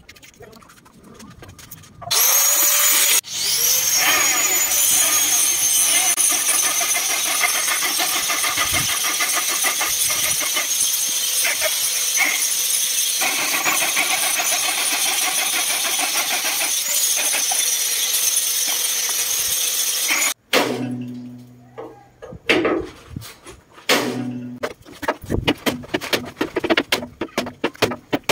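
Electric angle grinder started about two seconds in, stopping for a moment and starting again, its whine rising to full speed, then grinding on steel chassis metal steadily until it cuts off abruptly about two-thirds of the way through. After that, a run of sharp metal knocks.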